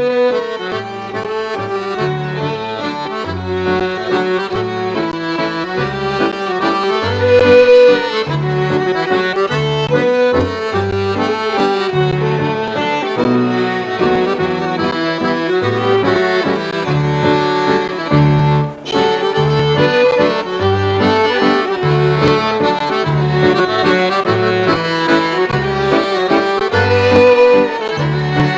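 Accordion leading a traditional Scottish waltz in three-time, with a low bass line stepping beneath the tune.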